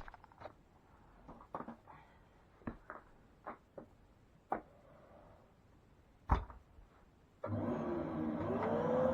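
Handling knocks and clicks, with one sharper knock about six seconds in. About seven and a half seconds in, a Hoover Whirlwind bagless cylinder vacuum cleaner switches on: its motor starts with a sudden rush of air, and its whine dips and then rises to settle into a steady running tone near the end.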